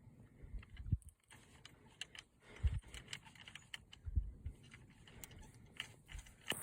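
Scattered small clicks and light rattles, with a few soft low thumps about a second in, near the middle and past four seconds in: handling noise of gear.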